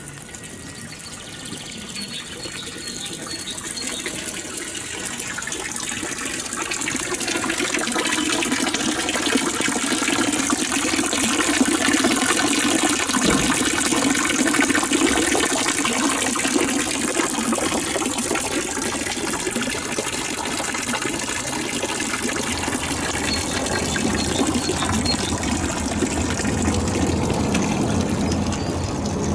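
Running, splashing water, as from a fountain. It grows steadily louder over the first several seconds, then holds steady.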